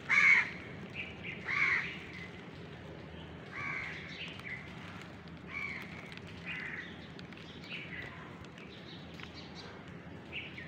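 Crows cawing again and again, short harsh calls about every second or two. The two loudest come in the first two seconds, and the later ones are fainter.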